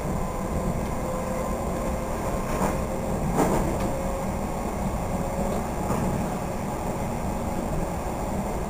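Cabin noise of a Comeng electric suburban train running along the line: a steady low rumble of wheels on rail with a faint steady whine. Two short clicks come about three seconds in.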